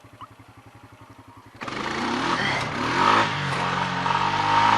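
Honda four-wheeler's engine idling with a low, steady putter, then the throttle is opened about a second and a half in and the engine revs up loudly, its pitch rising and falling as it pulls.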